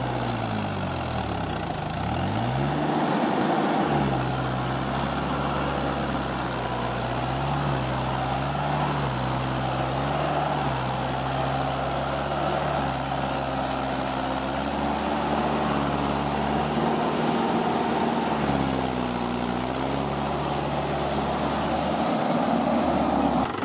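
Mahindra tractor's diesel engine running steadily as the cage-wheeled tractor puddles a flooded paddy field. Its engine speed drops and picks back up in the first few seconds, and again briefly later on.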